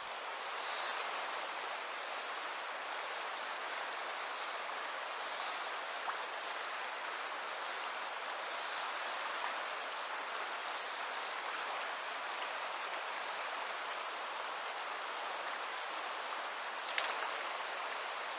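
Steady rush of flowing river current over a trout stream, with a single sharp click about a second before the end.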